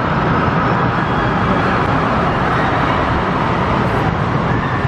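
Steady background noise of an indoor amusement park hall, with a steel roller coaster train rolling along its track.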